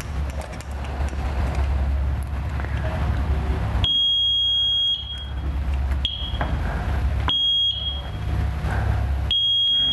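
Timing tester wired across the magneto's kill stud and ground, giving high-pitched electronic beeps that switch on and off as the magneto body is turned and the points make and break contact. Four beeps, starting about four seconds in, some short and some over a second long, over a steady low hum.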